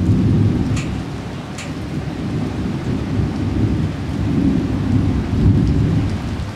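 Thunder breaking suddenly, then rolling on as a long low rumble that swells several times before dying away near the end, over the steady hiss of rain.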